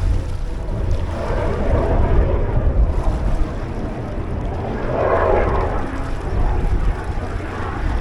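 Strong wind buffeting the microphone in a steady low rumble, with two swells of rushing noise about a second and about five seconds in.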